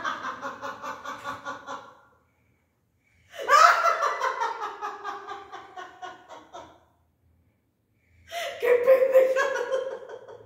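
A woman laughing in three long bouts, each a run of quick pulses that fades away, with short silences between. The second bout is the loudest and starts highest, then falls.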